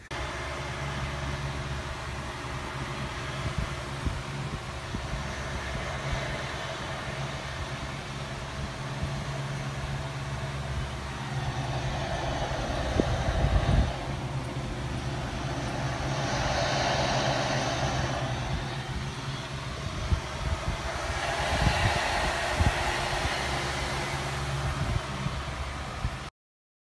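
Steady rumble and hum of a vehicle on the move, engine and road noise heard from inside the vehicle, swelling in loudness a few times.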